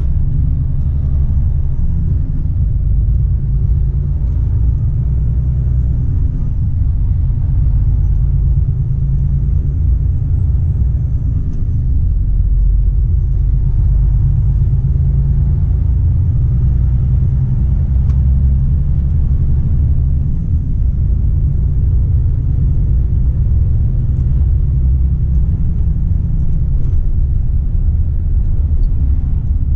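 Volvo FH 460 truck driving along: a steady low rumble of engine and road noise.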